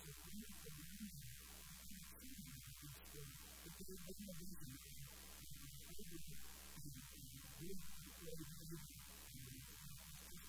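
Steady electrical mains hum with a woman's faint, muffled talking over it.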